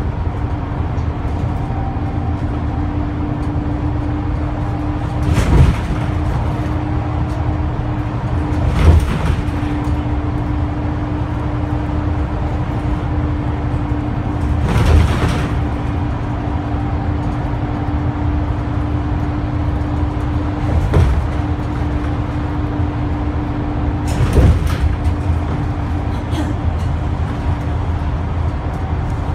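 Inside a Scania K320UB city bus cruising at steady speed: its rear-mounted Scania DC9 9.3-litre five-cylinder diesel drones evenly with a steady hum over tyre and road noise. Five short thumps and rattles break in as the bus rides over bumps in the road.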